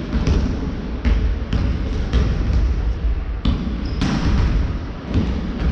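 Basketball bouncing on a wooden sports-hall floor as players dribble: short, irregularly spaced thuds over the low hum of a large hall.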